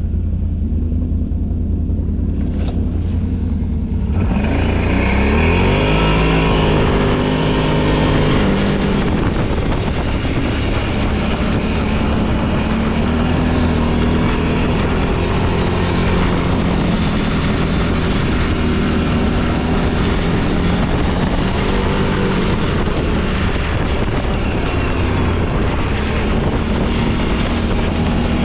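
Off-road vehicle's gas engine running under way, its pitch climbing as it speeds up about four to seven seconds in, then holding steady. A rushing noise grows loud at the same moment the engine picks up.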